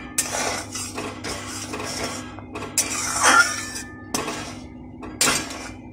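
Spatula scraping and stirring around a kadhai of hot sweetened milk and ghee in repeated strokes, the loudest about three seconds in, as the mixture is brought to the boil.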